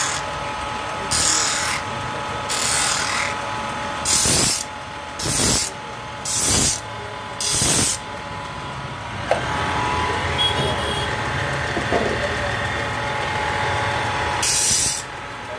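Electric disc sander running with a steady motor hum, its sanding disc grinding a wooden board's edge in short passes of about half a second, roughly one a second for the first half, then again near the end.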